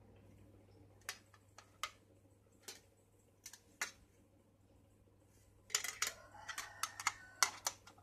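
Metal tin pencil case being handled. A few light taps and clicks come first, then a quick run of clinking, ringing metallic clicks near the end as the lid and base are knocked together and fitted shut.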